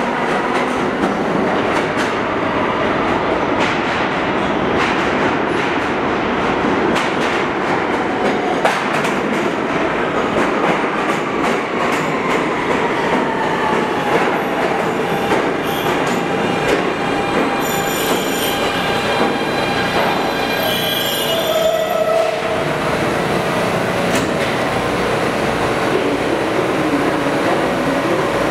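An R160B subway train with Siemens propulsion pulls in and brakes to a stop. The wheels clatter over the rail joints and the traction motors give a whine that falls slowly in pitch as the train slows. Short squeals come near the stop, then the standing train settles into a steady hum.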